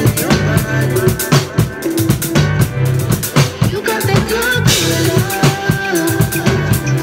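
Drum kit played live along with a recorded R&B song: kick, snare and cymbal hits over the track's bass and melody, with a cymbal crash about five seconds in.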